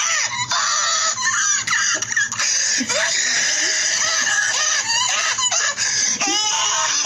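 Short squawking calls scattered over a loud, steady hiss.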